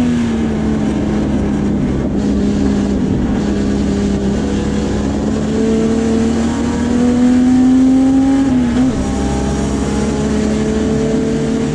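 Puma GTB race car's engine heard from inside the cockpit under racing load. Its note drops off at first as the car slows for a corner, then climbs steadily as it accelerates. There is a short dip about nine seconds in at a gear change, after which it climbs again.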